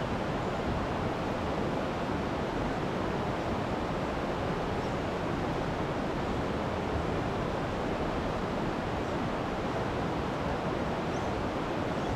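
Steady rushing of a shallow creek running over rocks and riffles.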